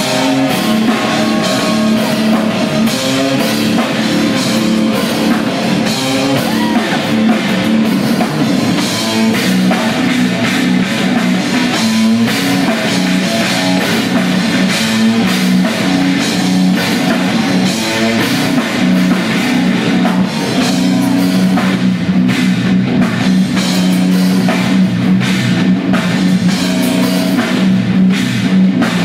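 A live rock band playing loudly and without a break: drum kit, distorted electric guitar, bass guitar and keyboards.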